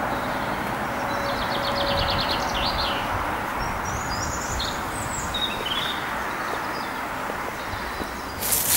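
Steady hum of road traffic with small songbirds singing over it: a rapid trill a little after a second in, then scattered short chirps. A brief rustle of steps in the undergrowth comes near the end.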